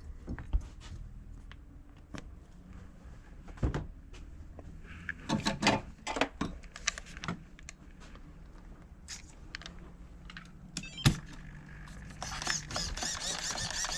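Scattered clicks and knocks of a nitro RC car and its fuel bottle being handled while the tank is filled, with a steady hiss for the last couple of seconds. The engine is not running.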